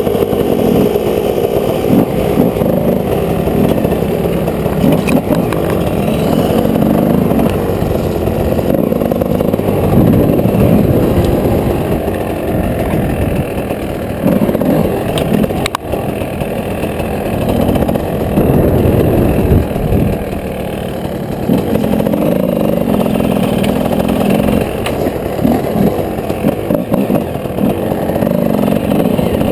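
Enduro dirt bike engine heard close up from the bike itself, its revs rising and falling over and over as it is ridden along a rough forest trail, easing off briefly a couple of times.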